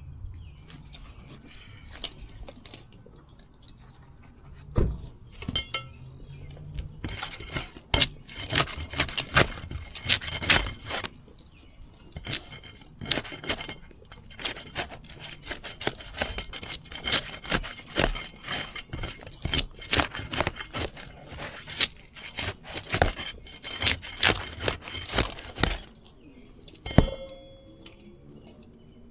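Asphalt shingles being pried loose from their seal strips: a dense run of clicks, scrapes and crackles from about seven seconds in, stopping a few seconds before the end, followed by one sharp knock with a short metallic ring.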